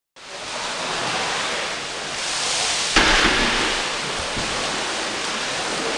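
Steady rush of pool water churned by kayaks and paddles, with a sudden louder splash about three seconds in.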